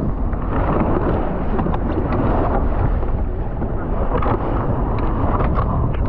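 Wind buffeting the microphone over the rush of water past a sailing boat's hull as it moves along, with a few short splashes or knocks in the second half.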